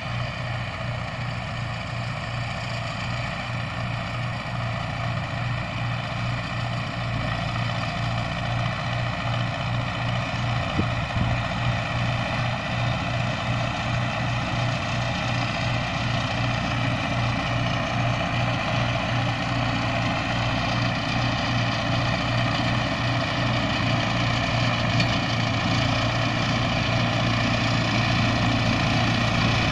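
MTZ-80 tractor's four-cylinder diesel engine running steadily under load while driving a PTO-powered Perugini TT-220 mower through grass. The sound grows gradually louder as the tractor comes closer.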